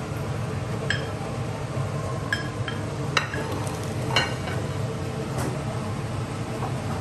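Fried rice being scooped from a wok into a small ceramic bowl with a wooden spatula, with about six short ringing clinks of the bowl and utensils. A steady low hum runs underneath.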